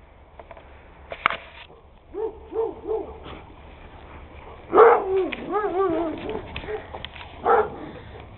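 A dog whining: three short whines, then a louder, longer whine with a wobbling pitch about five seconds in, and one more short whine near the end.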